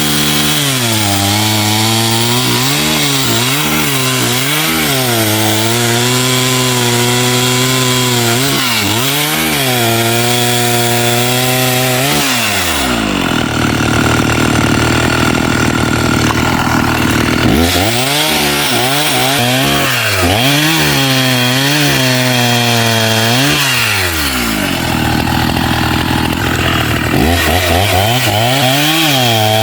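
Two-stroke chainsaw engine revved up and down again and again, then held at full throttle for several seconds, twice, while cutting into wood.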